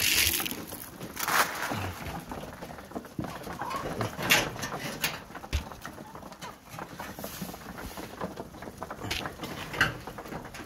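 Mixed flock of chickens, Lohman Brown hens and broilers among them, feeding on scattered grain: low clucking and cooing, with a few sharp clicks.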